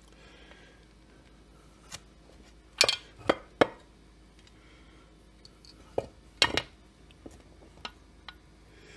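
Scattered sharp clinks and knocks of metal tools and chainsaw case parts being handled on a workbench. The loudest are a quick run of three about three seconds in and another about six and a half seconds in.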